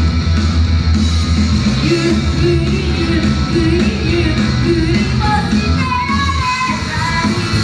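Idol group singing live over loud rock music, with a steady heavy bass and band sound; the sung melody line comes forward about five seconds in.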